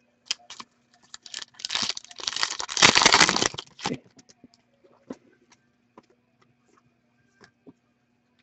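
A foil trading-card pack wrapper being torn open and crinkled for about two seconds, with scattered light clicks before and after.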